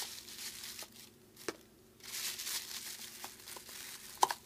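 Thin plastic grocery bag rustling and crinkling as hands move inside it, in two longer stretches, with a few light knocks and one sharp knock near the end.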